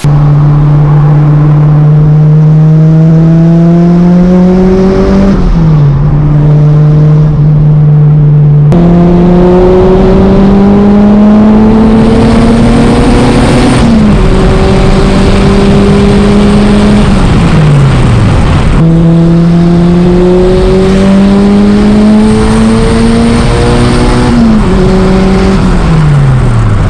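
Car engine accelerating hard, loud throughout: the pitch climbs steadily for several seconds, then drops sharply as it shifts up a gear. This happens in three separate passes, each broken off abruptly, and near the end the pitch falls away.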